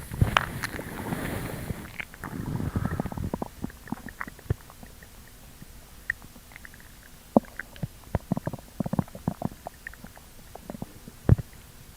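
Stomach growling: two low rumbles in the first three and a half seconds, then a scattering of small gurgling pops and clicks, with one louder pop near the end.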